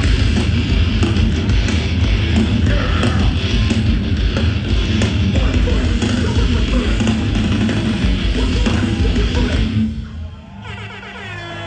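Loud live hardcore band playing heavy, dense music that stops abruptly about ten seconds in, followed by a few held, wavering tones.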